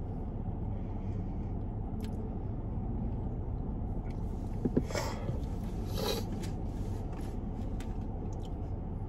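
Steady low hum inside a parked car's cabin, with a couple of brief soft eating noises about five and six seconds in.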